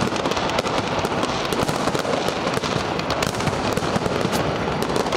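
Fireworks and firecrackers going off in a dense, continuous crackle of rapid pops.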